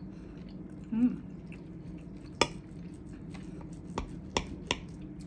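Cutlery clinking against plates during a meal: a few sharp, separate clinks, most of them in the second half, over a low steady hum.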